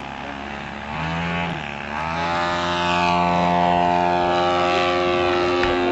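RC model airplane's propeller engine revving: a brief rise and fall in pitch about a second in, then it throttles up about two seconds in and holds a steady, louder high-revving tone.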